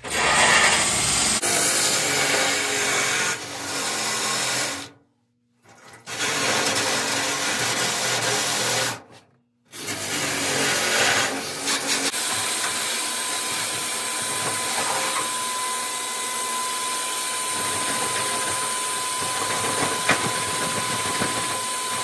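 Cordless drill grinding at rusty sheet metal in spells, cleaning out rust and caked debris; it cuts out completely twice. About twelve seconds in, a steady motor whine with a constant high tone takes over: a shop vacuum running.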